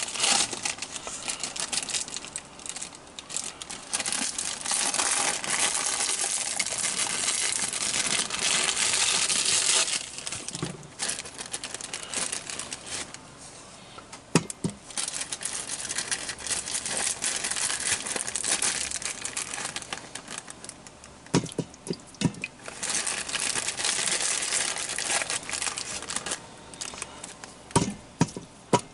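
Plastic bag of potatoes crinkling and tearing as it is handled and opened, in stretches of several seconds, with a few sharp knocks and taps in between.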